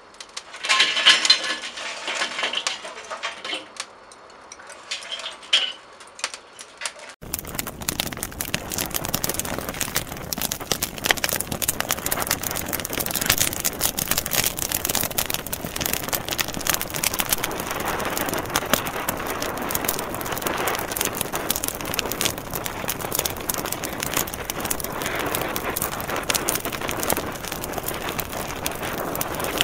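Glowing charcoal poured from a chimney starter into a grill, the coals clattering and crackling. About seven seconds in, the sound cuts abruptly to a steady, dense hiss full of fine crackles that runs on.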